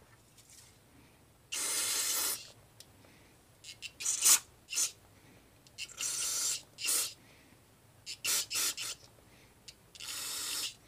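Small brass carburetor jet being blown or sprayed clean: three hissing blasts of about a second each, with several short puffs between them.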